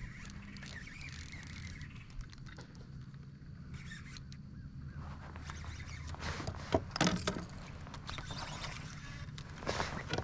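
Faint knocks and scrapes of gear against a kayak, a cluster about seven seconds in and another near the end, over a low steady hum.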